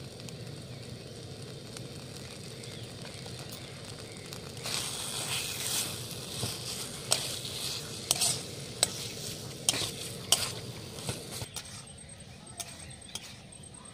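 Spiced potato, pointed-gourd and prawn filling sizzling in a metal wok while a steel spoon stirs and scrapes it against the pan. From about five seconds in the stirring gets louder, with frequent sharp clinks of the spoon on the metal, then eases off near the end.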